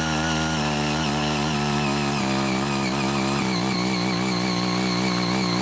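Ching Yee CY80 mini power tiller's small engine running hard as its rotary tines churn through weedy soil, its pitch wavering with the changing load.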